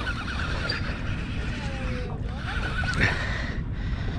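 Baitcasting reel being cranked to bring in a hooked fish, its gears whirring in spurts over wind and water noise. A few short falling squeals come near the middle, and a sharper, louder noise comes about three seconds in.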